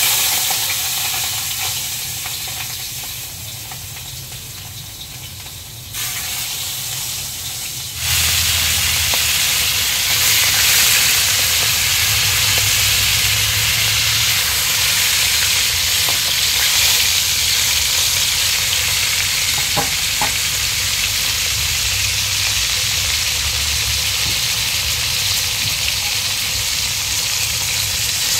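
Vinegar-soaked pieces of tulingan (bullet tuna) sizzling in hot oil in a wok. The sizzle is loud at the start, eases over the first few seconds, then grows louder in two steps about six and eight seconds in and holds steady; two light clicks come about twenty seconds in.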